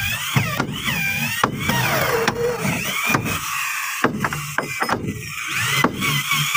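Handheld electric drill boring into the wooden planking of a boat hull. Its motor whine rises and falls in pitch as the bit bites and then settles into a steady whine near the end, with sharp clicks now and then.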